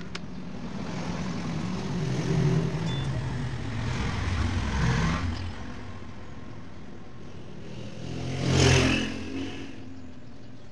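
Motor vehicles passing by: engine noise swells and fades over the first five seconds or so, then a second, louder pass rises and dies away near the end.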